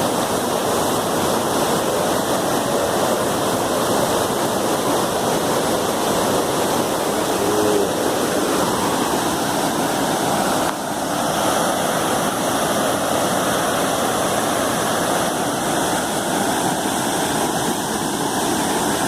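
Small waterfall pouring into a pool: a steady, dense rush of falling water.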